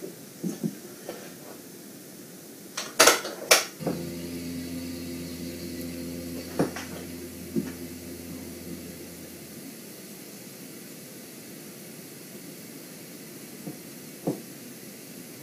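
Two sharp knocks, then a steady mechanical hum lasting about six seconds that stops, with a few scattered clicks over a faint steady hiss.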